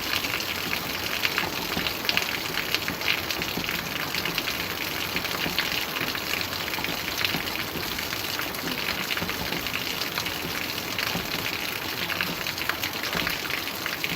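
Steady rain with many fine drop ticks, an even, dense patter.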